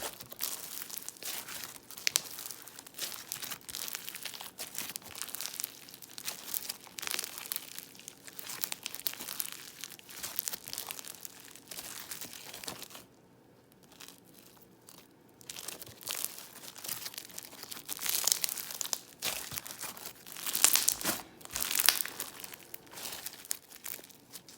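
Crunchy floam slime being squeezed and worked by hand, giving a dense crackle of small pops and crunches as its foam beads and air bubbles break. The crackling drops to a brief lull about halfway through, then comes back louder near the end.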